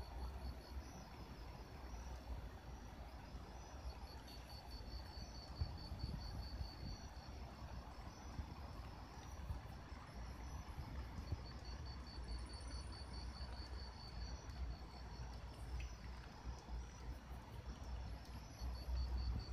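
Insects trilling in a rapid pulsing chirp that drops out and resumes a few times, over a faint low rumble.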